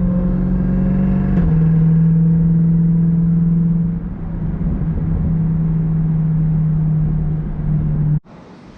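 Jeep Trackhawk's supercharged 6.2-litre V8 droning at a steady pitch under way. The pitch steps down once about a second and a half in. Near the end it cuts off abruptly and gives way to wind noise.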